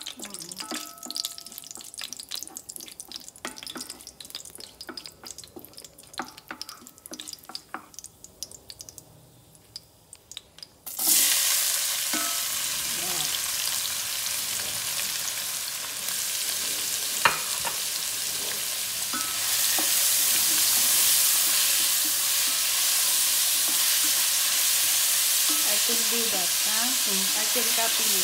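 A wooden spoon stirs whole spices and leaves in a little hot oil in a non-stick pot, with light scattered taps and scrapes. About eleven seconds in, chopped onions go into the hot oil and a loud, steady sizzle starts at once. The sizzle grows louder again a little past halfway and goes on under the stirring.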